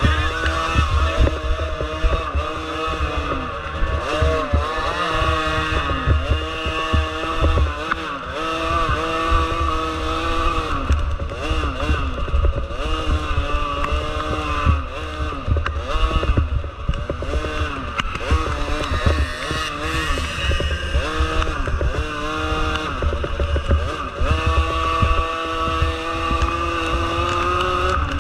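Small 50cc dirt bike engines revving up and down again and again, the pitch climbing and dropping every second or two, over a steady low rumble of wind on the microphone.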